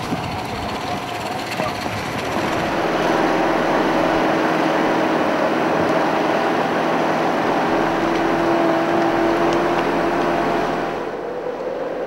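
Outboard motor of an inflatable boat running steadily with a hum over rushing water, growing louder about two seconds in.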